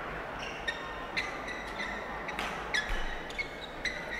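Badminton players' court shoes squeaking on an indoor court floor: a scatter of short, high squeaks and taps, faint under the hall's background hiss.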